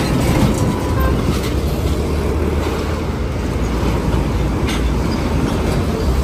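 Loud, steady rumbling noise of a heavy vehicle running, deepest in the low end with an even hiss above it.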